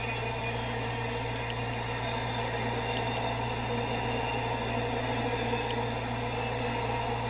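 Steady rolling noise of a long double-stack intermodal freight train's well cars passing on steel rails.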